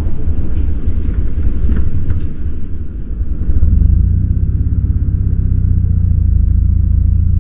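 Superbike engine and rumble heard from the rider's on-bike camera, dipping briefly about three seconds in, then picking up and running louder and steadily as the bike accelerates away.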